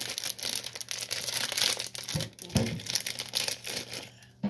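A chocolate bar's wrapper crinkling and tearing as it is unwrapped by hand, in a quick run of irregular crackles.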